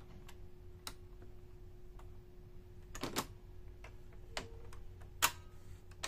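Epson inkjet printer running its print head cleaning cycle: the print head carriage shifts along its rail with a scattering of sharp mechanical clicks and knocks, a quick cluster about three seconds in and the loudest just after five seconds, over a faint steady hum.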